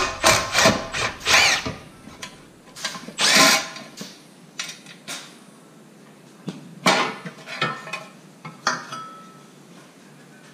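Handheld power driver run in short trigger bursts, its motor whining up and down, most likely backing screws out of the snowblower's panels.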